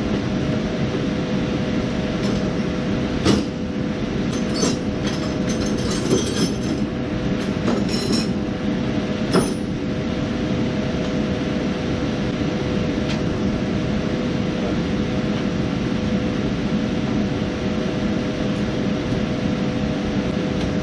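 Steady whirring hum of an electric motor and fan, holding a constant pitch throughout. Several short metallic clicks and clinks fall between about two and ten seconds in.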